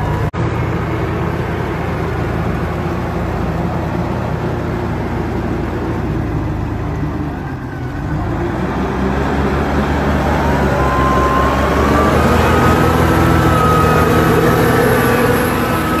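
Case IH Puma CVX 230 tractor's 6.7-litre diesel engine running steadily under load while pulling a plough through hard soil. About ten seconds in, a whine rises in pitch and holds, and the engine grows louder.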